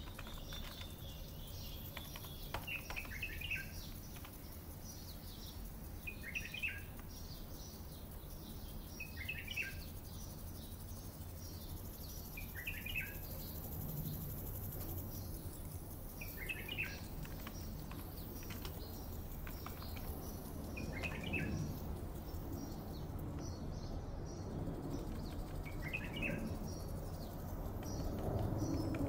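A songbird repeating a short chirping call about every three to four seconds, with fainter chirps between, over a steady low background hum that swells near the end.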